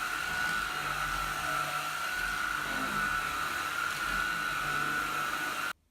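Puppyoo T10 cordless stick vacuum running on its normal (not high) setting over a rug: a steady motor whine with a high tone. It cuts off abruptly near the end.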